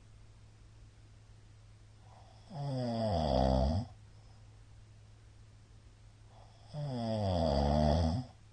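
A middle-aged man snoring in his sleep: two loud snores about four seconds apart, each lasting about a second and a half, with quiet breathing gaps between.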